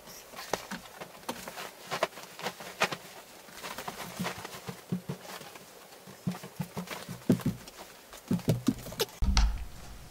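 Bedding being handled while a bed is made: a duvet and pillows rustling and flapping, with scattered soft knocks and taps. A louder bump comes near the end.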